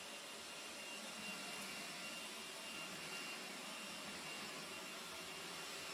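Panasonic stick vacuum cleaner running steadily: an even rushing hiss with a thin, constant high whine.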